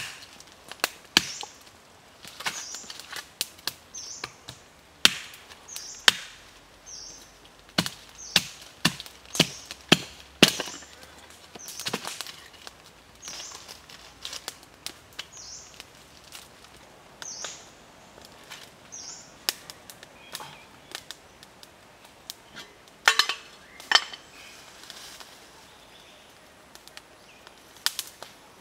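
Irregular sharp knocks and snaps of thin dry wood being split and broken by hand into kindling for a small open fire, with a few louder cracks.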